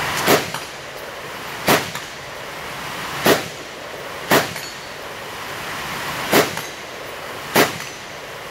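Six single shots from a 10.5-inch AR-style rifle, fired at an uneven pace about one to two seconds apart, each a sharp crack with a short tail. A steady hiss runs underneath.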